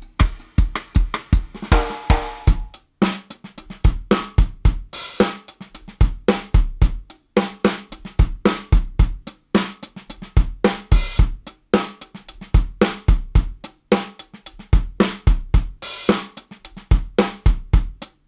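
Studio-recorded acoustic drum kit played in a steady groove: kick drum, snare and hi-hat, with a crash cymbal ringing out now and then.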